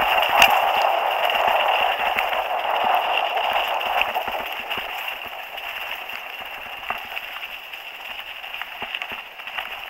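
Rushing noise with many scattered clicks and rattles from a camera carried along a rough, wet dirt track, fading over the second half.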